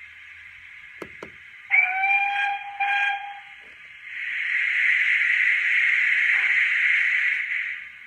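Sound-fitted OO gauge model steam locomotive's speaker: two short clicks, then a steam whistle of several pitches sounding for nearly two seconds with a brief break in it, then a steady steam hiss for about four seconds that stops shortly before the end. The sound is thin, as from a small speaker.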